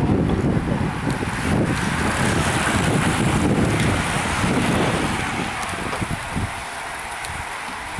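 Wind buffeting the microphone, heaviest over the first five seconds, over the rushing whir of a pack of road bikes' tyres and freewheels passing close.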